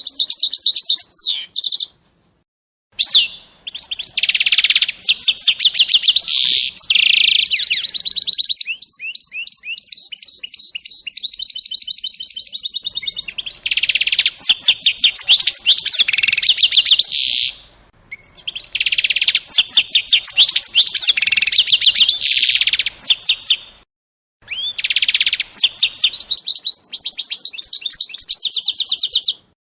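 A small songbird singing long, loud phrases of rapid repeated notes and trills. The song breaks off briefly three times.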